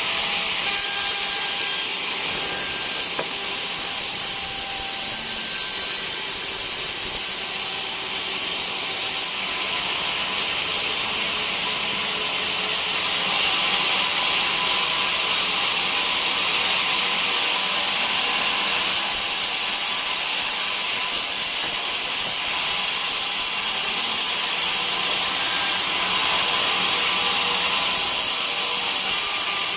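Bandsaw mill blade ripping through a teak log, a steady, loud, hissing cut with no break.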